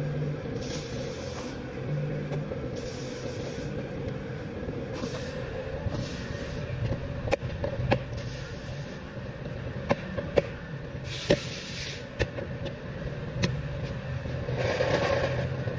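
Plastic retaining clips of a 2023 Chevy Silverado 2500 door trim panel popping loose in a string of sharp clicks as the panel is pried off with a plastic pry tool, mostly in the middle of the stretch, with brief scraping of plastic on plastic. Under it runs a steady low rumble of workshop background noise.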